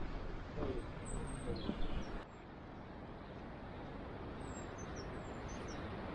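Steady rushing noise of a distant waterfall, with small birds chirping faintly over it.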